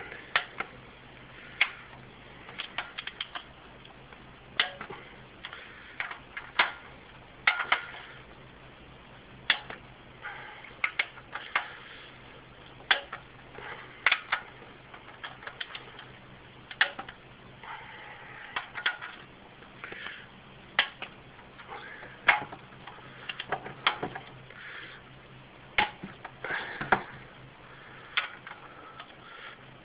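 Click-type torque wrench on cylinder head bolts, giving a sharp click every second or two, with lighter ratchet ticks in between. This is the second pass at 50 lb-ft: each bolt is already at torque, so the wrench clicks almost at once.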